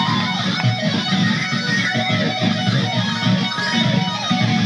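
Live heavy metal music: loud distorted electric guitar over bass. A lead guitar holds long notes that bend downward, one right at the start and another about three seconds in.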